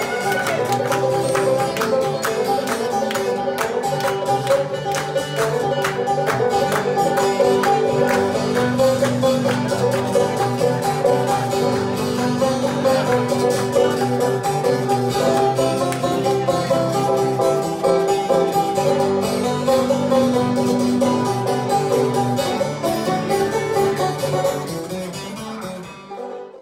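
Bluegrass-style music with fast-picked acoustic strings, fading out near the end and then cutting off.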